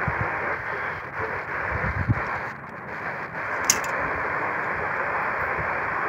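Steady hiss of radio static from a portable radio receiver tuned to a weak broadcast, muffled with no high end, broken by a few low knocks and a sharp click a little past halfway.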